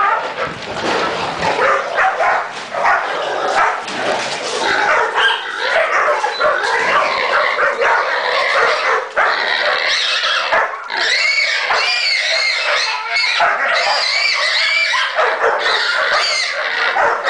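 Hog dogs barking at a bayed hog while the hog squeals and grunts. From about ten seconds in, the high squeals come one after another, loud over the barking.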